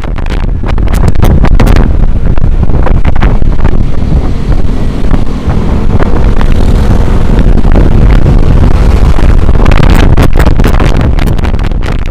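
Loud wind buffeting the microphone over rushing sea surf, a steady roar full of crackling jolts that swells in at the start and eases near the end.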